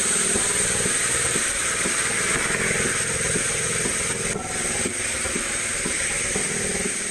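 Background music with held low notes that change in steps, under a loud, steady hiss.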